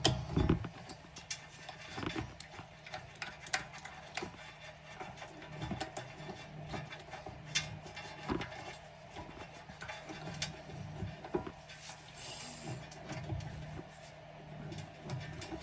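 Irregular metallic clicks and clinks of hand tools on a brake caliper as its two mounting bolts are threaded in and tightened.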